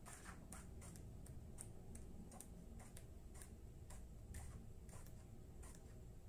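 Paper pages of a workbook being flipped quickly, heard as faint, irregular paper ticks and flicks about two or three a second, in sped-up footage.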